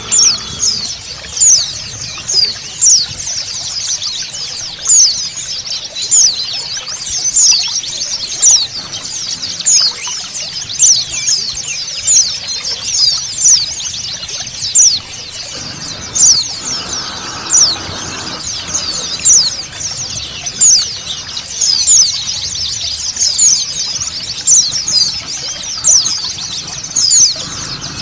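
A flock of white-eyes (pleci) twittering: many quick, high, downward chirps packed closely together, over a steady sound of flowing water.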